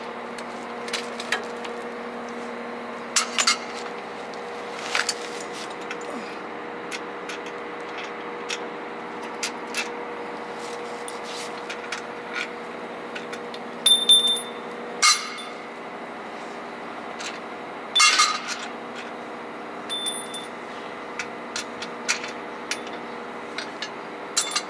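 A pneumatic tool on an air hose, worked at the truck's transmission housing in a few short bursts of about half a second, over a steady background hum. Scattered light metallic clinks of tools fall between the bursts.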